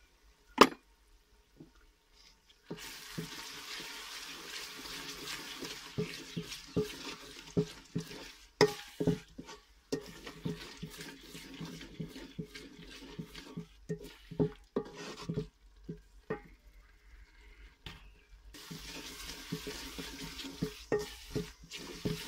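Onion-tomato masala frying in oil in an aluminium pot while a wooden spoon stirs it, sizzling with repeated knocks and scrapes of the spoon against the pot. A single sharp tap comes about half a second in.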